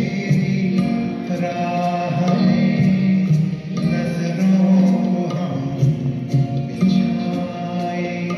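A male vocalist singing a slow, melodic song into a microphone over musical accompaniment, with long held notes that glide slowly in pitch.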